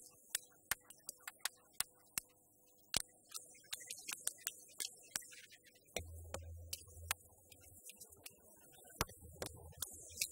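Live hand percussion: sharp clicks in an uneven rhythm, about two to three a second, with deep drum bass coming in about six seconds in and again about nine seconds in.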